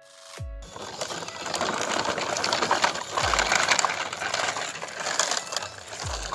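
Plastic toy trucks rolling over paving stones and dry leaves, their wheels and chassis making a dense crackling rattle of small clicks. Three brief low sweeps falling in pitch break in, at about half a second, three seconds and six seconds in.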